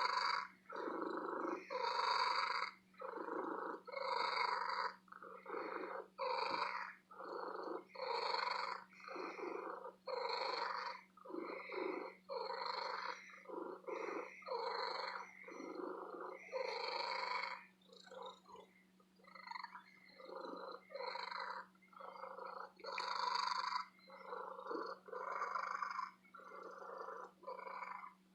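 Domestic cat purring in a steady rhythm of breaths in and out, about four pulses every three seconds.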